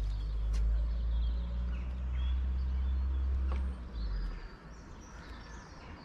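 Outdoor ambience: a low steady rumble for the first four seconds, then fading, with small birds chirping throughout.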